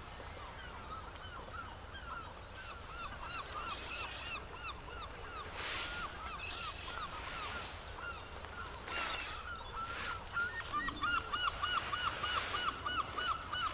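A flock of birds calling: many short, rapidly repeated calls overlapping one another, with a quick, evenly spaced run of calls near the end. There is a brief rustle about six seconds in.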